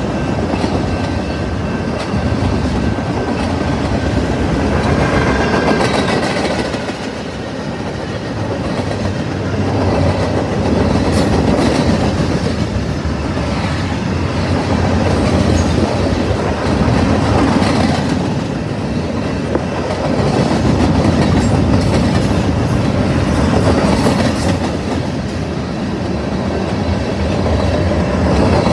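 Freight train of autorack and covered hopper cars rolling past: steady rumble of steel wheels on the rails with clickety-clack over the rail joints, swelling and dipping as the cars go by.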